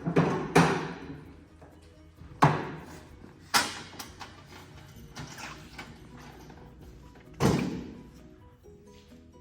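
Sheets of panel material thudding and slamming as they are handled and set down, several loud irregular thuds, over background music.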